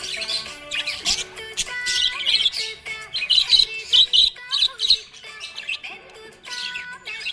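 Budgie chirping and warbling in a fast, busy stream of high chirps, loudest in the middle, over background music with held tones.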